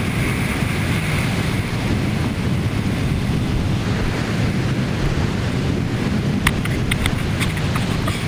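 Strong gusty wind buffeting the microphone: a steady, loud low rumble. From about six and a half seconds in, several sharp crackles cut through it.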